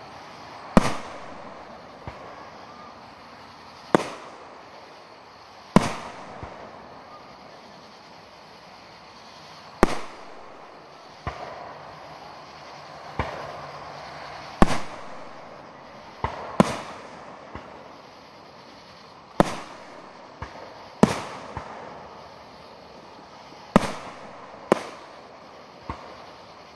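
Aerial firework shells bursting, about fourteen sharp bangs spaced irregularly one to four seconds apart, each with a short echoing tail.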